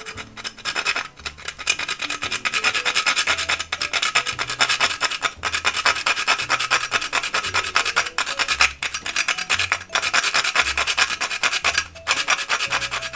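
Whole nutmeg being rasped on a small handheld metal spice grater: a fast, continuous run of scraping strokes, broken by a few brief pauses.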